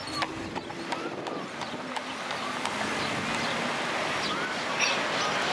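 A carriage horse's hooves clip-clopping on the pavement, thinning out over the first two seconds, then a steady rushing noise of wind and street background.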